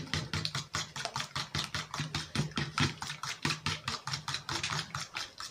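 Fork beating eggs in a plastic bowl: rapid, even clicking strokes, about seven a second.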